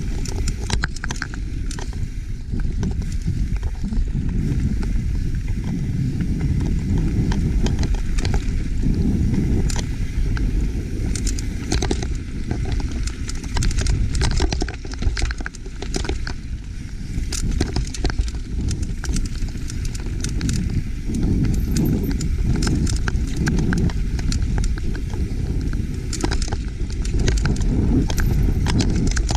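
Mountain bike ridden fast over rocky dirt singletrack: a steady low rumble of tyres and wind, with frequent sharp clicks and clatters as the bike rattles over rocks.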